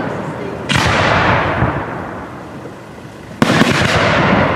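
Two aerial firework shells bursting, the first about a second in and the second near the end. Each sudden bang is followed by a long echoing rumble that slowly dies away, and the second bang comes with a few quick extra cracks.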